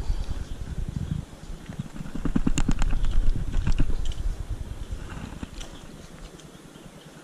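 Close handling noise right at the microphone: rumbling and rubbing, with a run of irregular knocks and clicks about two to four seconds in, as a small fish caught on a lure is gripped and handled.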